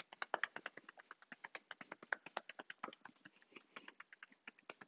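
Loose fists tapping the front and side of a thigh through trousers, a fast run of faint, light taps at about six a second, as a self-massage to loosen the muscle.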